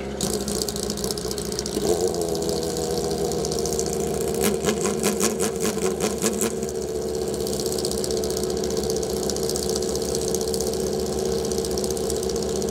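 Drag-racing motorcycle engine idling steadily, picking up slightly about two seconds in. A rapid rattle of even clicks runs for about two seconds near the middle.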